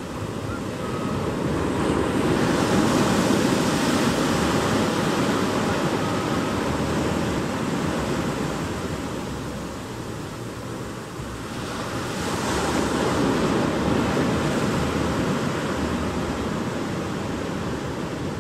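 Ocean surf breaking and washing up a beach. Two waves come in, the first swelling about two seconds in and the second about twelve seconds in, and each dies away slowly.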